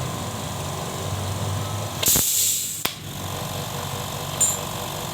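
Mollar 50-litre silent air compressor running with a steady low hum. About two seconds in, a loud hiss of compressed air lasts under a second and stops with a click, as the tank's drain valve is opened to blow out the condensed water.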